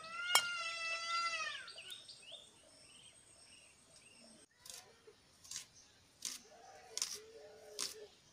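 A drawn-out animal call, rising and then falling in pitch, lasting about a second and a half. After a pause come sharp clicks about once a second as snail shells are cracked against a cutting blade, with a fainter, lower call near the end.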